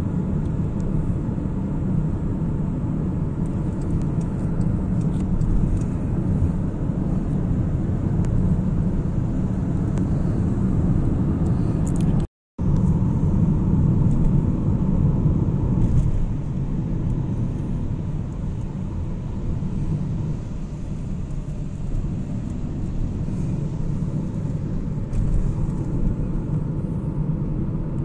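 Steady low road and engine rumble inside a car's cabin while driving at highway speed, broken once about twelve seconds in by a brief moment of silence.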